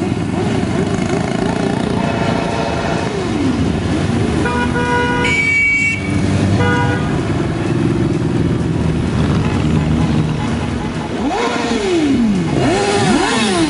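Many motorcycles riding past in a parade, their engines running together in a dense din. Horns honk several times about a third of the way in. Near the end, engine pitch rises and falls repeatedly as bikes rev and pass close.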